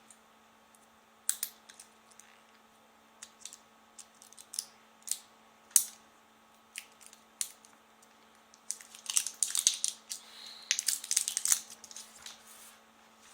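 Hands handling a small plastic bicycle tail light: scattered sharp plastic clicks and taps, then a few seconds of crinkly rustling and scraping from about nine seconds in, as the light is fiddled with to get it open.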